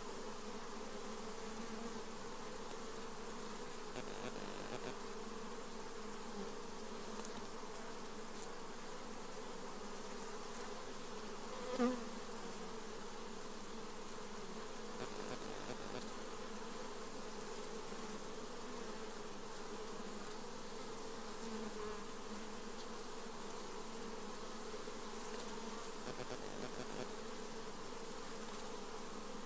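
Many honey bees buzzing together in a steady, even hum, with one brief louder buzz about twelve seconds in.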